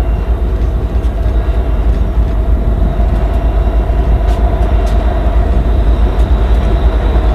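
Union Pacific freight train's lead diesel locomotives, headed by a GE AC44CW, running steadily as they come down the grade toward the listener, a continuous low rumble with a steady hum that grows slightly louder near the end.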